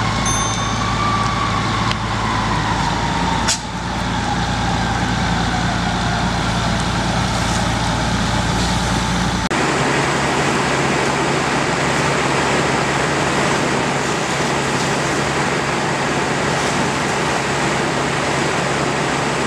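A fire engine's engine runs steadily at the scene, with a faint whine that rises and falls and a single click. About halfway through, the sound cuts to a steady rushing hiss of a hose stream spraying into a burning semi-trailer, mixed with the fire.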